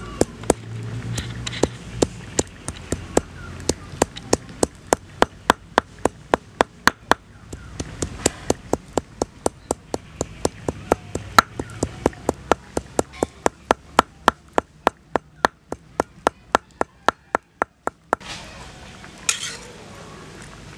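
Stone pestle pounding spice paste on a flat grinding stone, sharp regular knocks about three a second that stop near the end. A short scrape follows as the paste is scraped off the stone.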